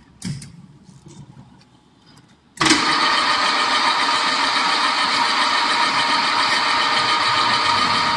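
GG60A automatic wafer cone making machine switched on at its control panel. A short knock comes near the start, then about two and a half seconds in the machine's motor starts abruptly and runs with a loud, steady whirring whine.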